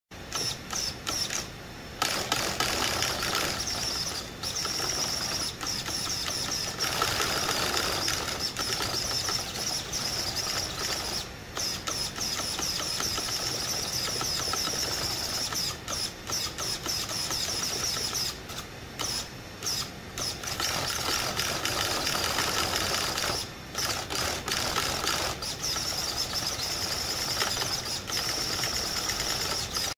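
RS2500 V2 high-torque 1/5-scale steering servo whining as it rapidly sweeps the front wheels from side to side, in repeated bursts broken by brief pauses.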